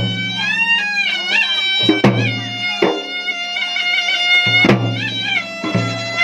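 Traditional Makassarese gendang drums beating, with a reedy wind instrument playing a sliding, ornamented melody over them and a low sustained tone underneath that comes and goes.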